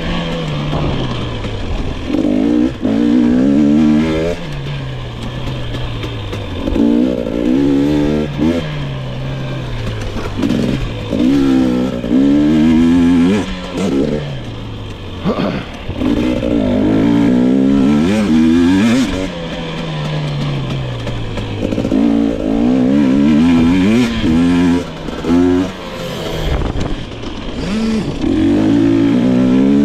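2022 GasGas EX 250 fuel-injected two-stroke dirt bike engine ridden hard, repeatedly revving up under throttle and dropping back between surges every few seconds.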